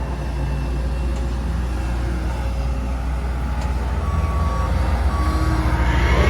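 Diesel engine of heavy paving machinery running steadily with a deep rumble; from about four seconds in a backup alarm beeps repeatedly, and near the end the engine revs up.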